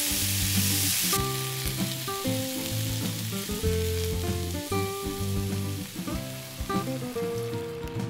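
Diced mushrooms, onion and bell pepper sizzling as they fry in a pan and are stirred with a silicone spatula. The sizzle is strongest in the first second, then softer. Background music plays throughout.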